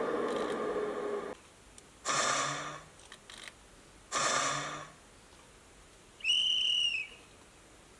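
Recorded sound effects from a model Class 55 Deltic's DCC sound decoder, played through the model's small speaker one after another. A steady whirring cuts off just over a second in, two short noisy bursts follow about two seconds apart, and a single high whistle note sounds near the end.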